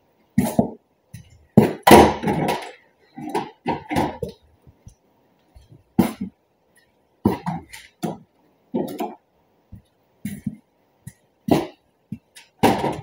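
Irregular metallic clanks and knocks of hand tools and fasteners working on a truck's headlight mount, a dozen or so short hits, some with a brief ring.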